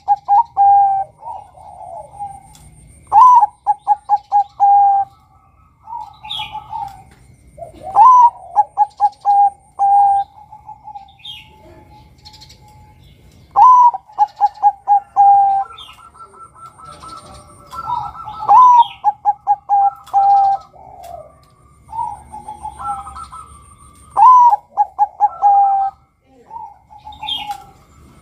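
Male zebra dove (perkutut, Bangkok line) singing its cooing song. The phrase repeats about every four to five seconds, each one a bending opening note followed by a rapid string of short staccato coos. Other birds chirp faintly between the phrases.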